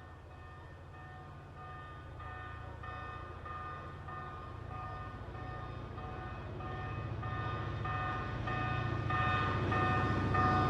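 Passenger train approaching, its locomotive bell ringing steadily at about one and a half strikes a second with an unusual tone, over a low engine rumble that grows louder throughout.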